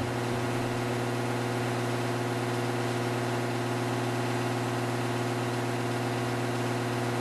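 A steady low hum made of several held tones, unchanging throughout.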